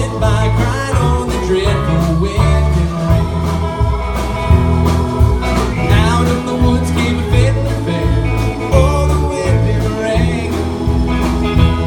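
Band music in an instrumental stretch of a folk ballad: a guitar playing a bending lead line over a walking bass and steady percussion.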